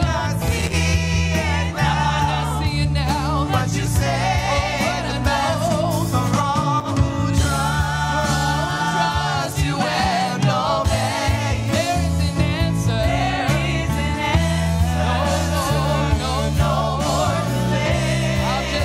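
Live gospel worship music: a praise team of several singers, voices wavering with vibrato, over a band with a steady electric bass line.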